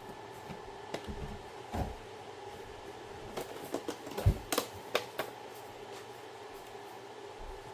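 Toy packaging being handled and opened: scattered clicks and taps with a few soft thumps, busiest about a second in and again around the middle.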